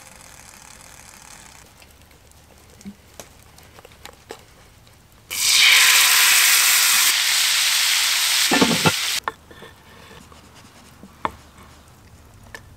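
Liquid poured into a hot iron pan of pan juices over a campfire, sizzling loudly. The sizzle starts suddenly about five seconds in and cuts off sharply some four seconds later, with faint scattered clicks before and after.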